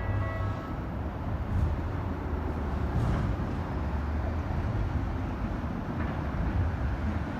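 Level-crossing warning bell ringing and then cutting off just after the start, followed by a steady low rumble of road traffic driving across the crossing.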